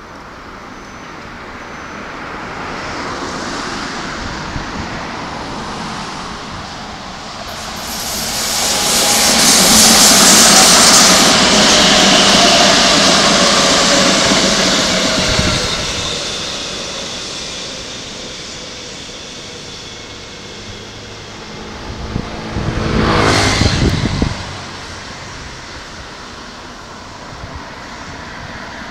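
Keikyu 800 series six-car electric train passing close: the rush of wheels on rail swells to a loud peak and fades away, with a whine that falls in pitch through the middle of the pass. A shorter loud rush comes about three-quarters of the way through.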